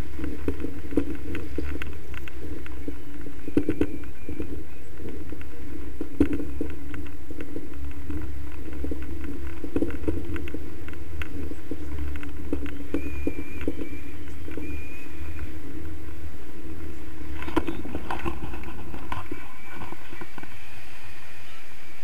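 Wind buffeting the action camera's microphone during a tandem paraglider flight: a steady low rumble with scattered knocks and rustles.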